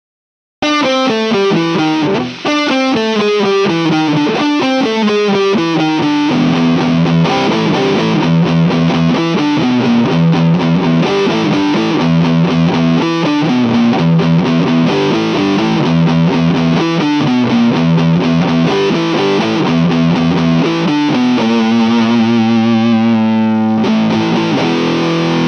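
Epiphone SG 310 with EMG 81/85 active pickups played with high-gain distortion through an amp-simulator chain. After a brief break at the start it plays fast descending runs, then chugging metal riffs, and ends on a held chord that cuts off near the end.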